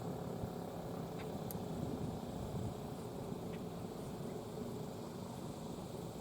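Steady low outdoor background rumble, like distant traffic, with a few faint short high chirps scattered through it.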